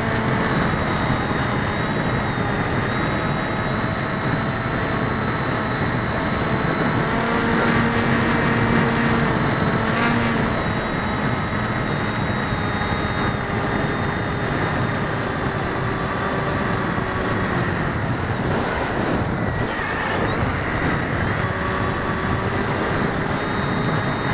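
Electric motors and propellers of an RC FPV aircraft running steadily through a flight, heard through an onboard keychain camera's microphone along with heavy wind noise; the props are unbalanced. Around three quarters of the way in the motor pitch drops and then climbs back as the throttle is eased off and opened again.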